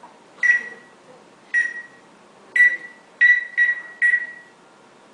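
Cockatiel whistling a series of short beep-like notes in imitation of an electronic tone: three notes about a second apart, then three more in quick succession.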